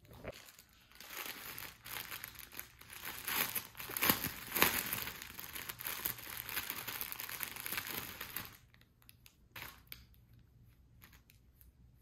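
Clear plastic packaging bag crinkling as it is handled and torn open. The rustle runs for about seven seconds, is loudest in the middle, and stops near the end; a few soft clicks follow.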